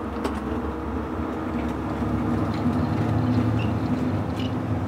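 Inside a city bus: the engine drones steadily along with road and cabin rumble, with a few faint rattles.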